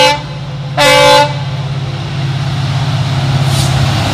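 WDP-4D diesel locomotive's horn: a long blast cutting off just after the start, then a short blast about a second in. After that the low rumble of the locomotive approaching at speed grows steadily louder.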